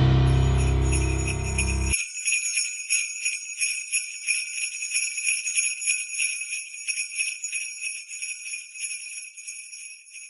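Sleigh bells jingling in a fast steady shake, slowly fading out. Under them a closing music chord with deep bass rings and cuts off abruptly about two seconds in.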